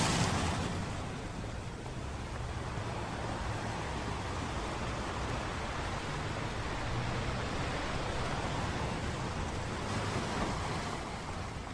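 Sea waves washing onto a beach, with wind rumbling on the microphone. A wave's rush fades over the first second or two, and another swells briefly near the end.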